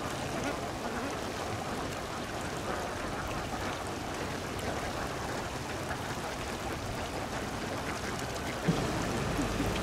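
Domestic ducks splashing and bathing in shallow muddy water: a steady watery rustle, with a sharp louder sound near the end.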